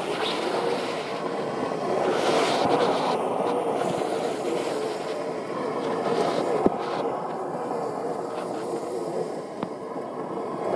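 Electric-motor whine from a battery-powered Power Wheels racer, wavering in pitch as it drives and slides on loose gravel, over a steady rush of tyre-on-gravel noise. There is one sharp knock about two-thirds of the way through.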